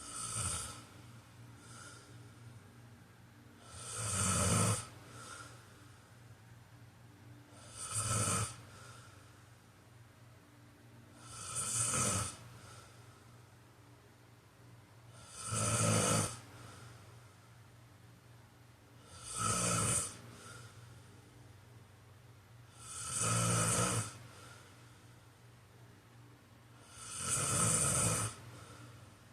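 A sleeping person snoring in an even rhythm: one snore about every four seconds, each lasting around a second, eight in all.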